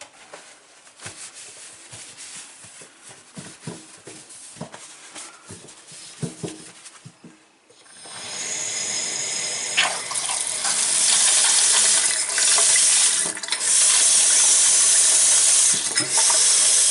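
Light clicks and handling, then about eight seconds in a Delta kitchen faucet is opened and tap water runs into the sink with a steady rush, strengthening a couple of seconds later.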